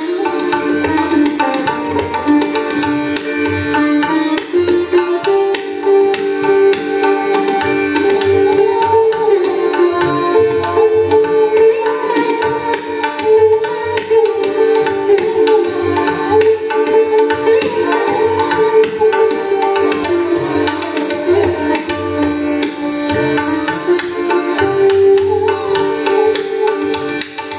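Instrumental passage of Hindustani light-classical music: tabla keeping time under a sustained, wavering melody line over a steady drone.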